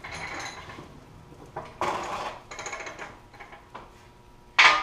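Metal shop table being moved across a concrete floor, its legs scraping and rattling in several spells. A loud metallic clank comes near the end and rings briefly.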